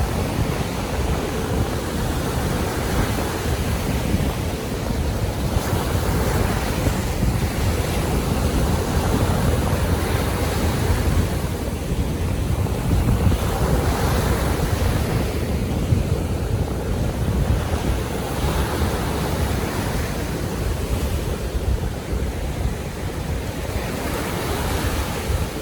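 Baltic Sea waves washing onto the shore, surging every few seconds, over a steady low rumble of wind buffeting the microphone.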